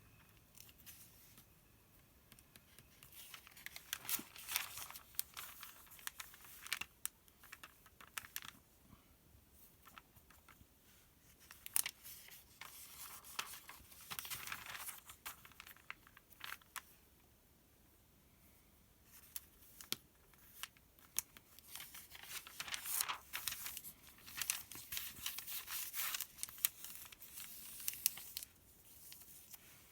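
Close-up rustling and crinkling of the paper pages of a sales circular as they are handled and turned, with light scratches and taps of fingers on the paper. It comes in bouts of a few seconds with short quiet gaps between them.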